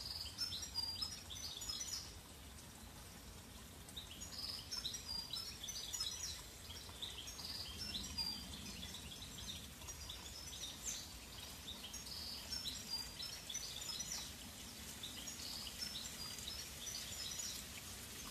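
Small songbirds chirping and singing in woodland, short high calls coming in quick clusters every second or two, over a faint low rumble.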